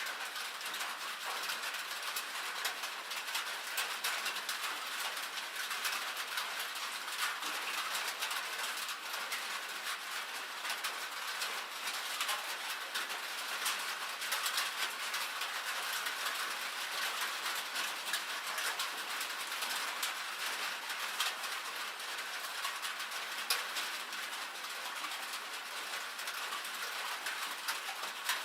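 Rain and hail falling on a metal roof: a steady, dense hiss full of sharp little ticks from the drops and stones striking the sheet metal.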